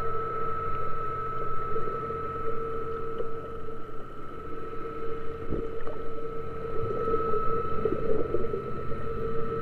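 A boat engine running steadily: a constant drone with a steady higher tone above it.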